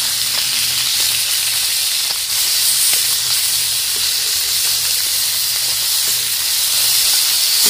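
Small whole fish sizzling in hot mustard oil in an iron kadhai: a steady, loud frying hiss, with a few faint clicks as the fish are turned over.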